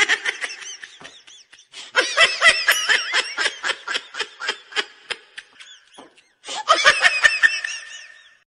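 Laughter in three bouts of rapid, short laughing pulses. The bouts are split by brief pauses, and the last one fades away near the end.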